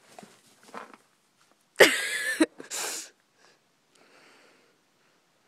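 A sneeze-like burst about two seconds in: a short loud voiced blast, then a hissing puff of breath just after.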